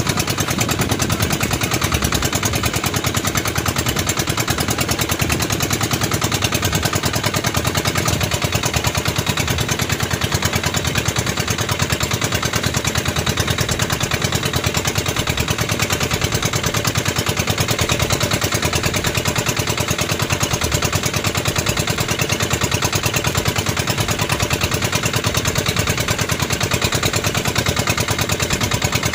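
A boat engine running steadily with a fast, even putter.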